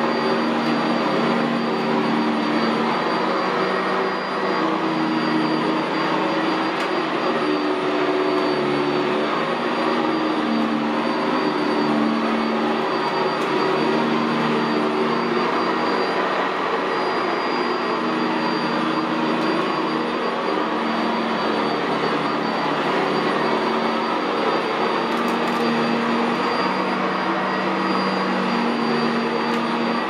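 Sanitaire SC679J commercial upright vacuum, fitted with a Vibra-Groomer II brush roll, running steadily as it is pushed back and forth over carpet. Its rushing airflow carries a thin high whine, and a lower hum shifts in pitch with the strokes.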